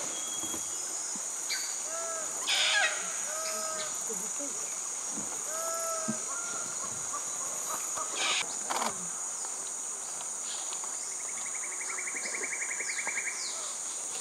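Steady high-pitched insect drone, with a bird giving a few short calls that rise and fall, about four in quick succession and then one more. A fast insect trill comes in near the end.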